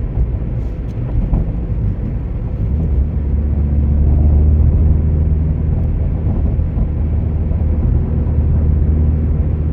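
Car engine and road rumble heard from inside the cabin while driving, with a low engine note that grows louder about three seconds in, then eases slightly.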